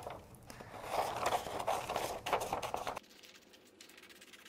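Scissors cutting through a sheet of paper, with the paper rustling as it is handled; the sound stops abruptly about three seconds in.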